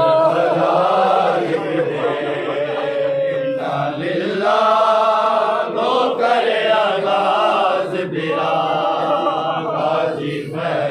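Men's voices chanting a noha, a Shia mourning lament, together in three long drawn-out phrases with short breaks between them.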